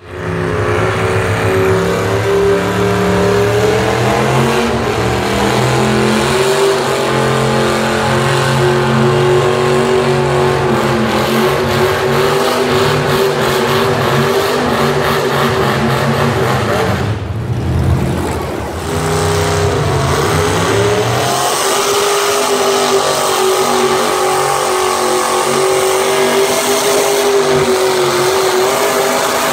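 Stock pulling tractor engine running hard under load as it drags a weight-transfer sled, the note climbing and then holding steady. Around two-thirds of the way through, the sound breaks off briefly. A second tractor's engine then revs up and holds steady as it pulls.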